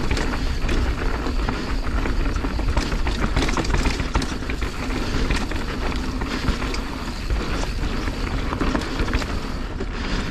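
Mountain bike rolling fast down a loose, dry dirt trail: steady tyre noise on the loose surface with frequent small clicks and rattles from the bike, heard through a camera mounted on the bike.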